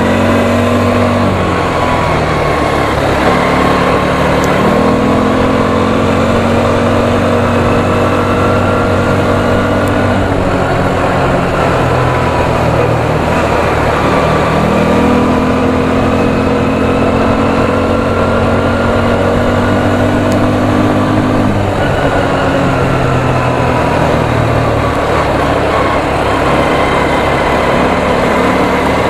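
Quad bike engine running under way, its note rising and falling as the speed changes, over a steady rush of noise.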